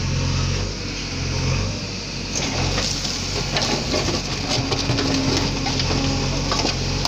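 JCB backhoe loader's diesel engine running steadily while its bucket digs into rubble; from about two seconds in, stones and broken masonry clatter and scrape against the bucket.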